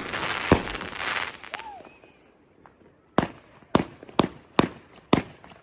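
A 29-shot consumer firework cake firing: a bang about half a second in with a dense hiss that fades over the next second, a short lull, then five sharp reports about half a second apart.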